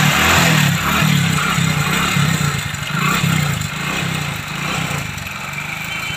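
Hero Splendor Plus motorcycle's single-cylinder four-stroke engine running steadily, getting gradually quieter over the few seconds as the revs settle, now fed through a newly fitted inline petrol filter.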